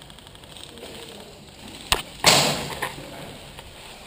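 Airsoft gun firing a single shot about two seconds in: a sharp click, then a loud pop with a short fading hiss, and a softer knock just after.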